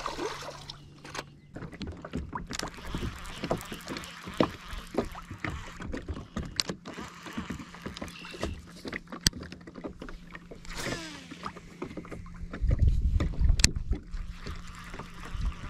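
A bass splashing into the water as it is released, then a baitcasting rod and reel being worked from a small boat: many small clicks and ticks of the reel and handling over a faint low steady hum, with a few louder low thumps near the end.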